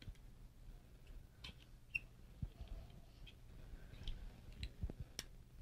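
Hand-held can opener being clamped onto a can and worked, giving faint, irregular clicks and ticks.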